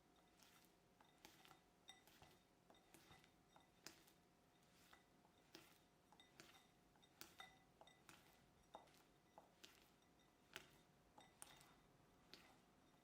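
Faint, light clinks of a kitchen utensil against a glass bowl while mixing, about one or two a second and unevenly spaced, over a faint steady hum.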